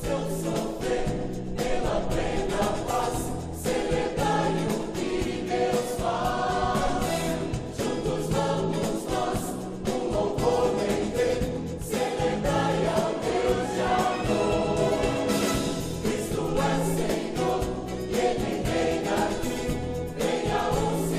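Mixed choir of men and women singing a gospel song together.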